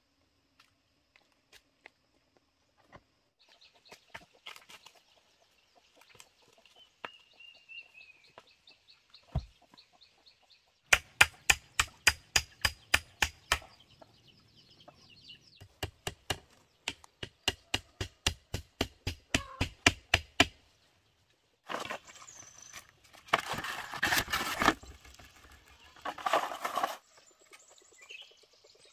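Two runs of rapid, sharp knocks, about four or five a second, followed by a few seconds of harsh rasping noise.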